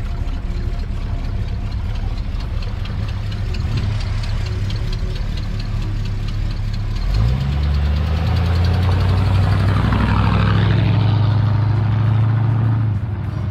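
1965 Ford Thunderbird's 390 cubic-inch V8 running at low speed. About halfway through it revs up and the exhaust gets louder, holding there as the car pulls away, then drops off sharply near the end.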